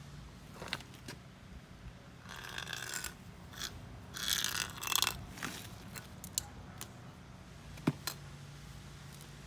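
Hand tools working on metal parts: scattered clicks and knocks, with two short rattling bursts about two and four seconds in, over a steady low hum.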